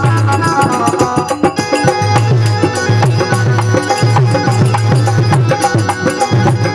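Instrumental passage of a Rajasthani devotional bhajan: a melody line held over a steady, driving drum beat, with no singing.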